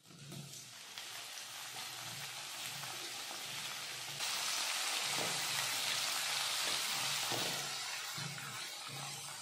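Chopped tomato sizzling in hot ghee in a kadhai with fried potato and peanuts, stirred in with a spatula. The sizzle gets louder about four seconds in.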